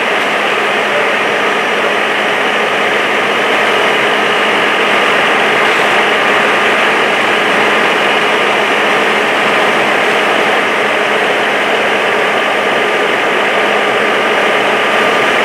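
A steady running engine: a constant hum with an even hiss over it, holding level with no change.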